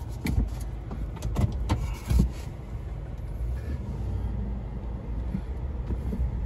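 Steady low rumble inside a stationary pickup truck's cab, with several short clicks and knocks in the first two seconds or so as the phone is moved about.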